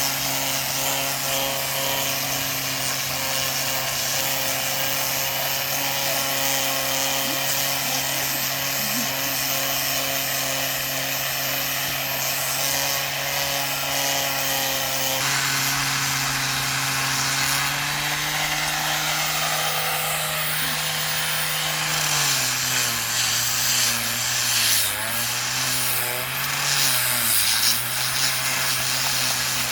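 Handheld electric power tool working wood, its motor running steadily, then dropping in pitch and wavering about three-quarters of the way through as it comes under load.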